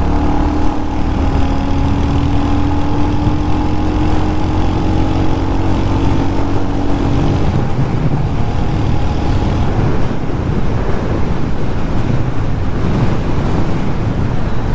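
Royal Enfield Hunter 350 motorcycle on the move at a steady pace, its single-cylinder engine running under a steady rush of wind on the microphone.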